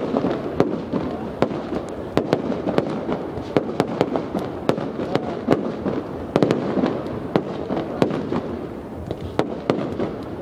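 Fireworks display: shells bursting in quick, irregular succession, a dense run of sharp bangs over a continuous rumbling background.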